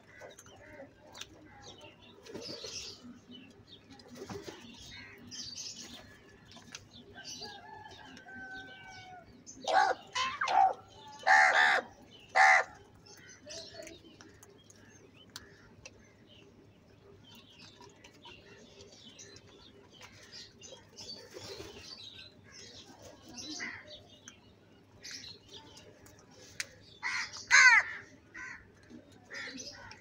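A flock of house crows cawing while feeding. About four loud, harsh caws come close together a third of the way in and two more near the end, with softer scattered calls and small clicks in between.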